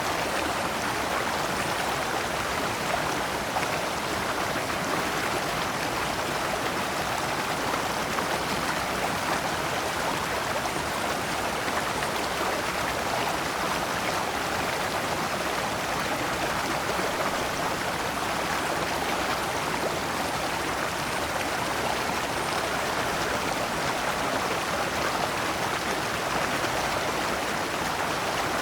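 Shallow rocky stream flowing over stones in small cascades, a steady even rush of water.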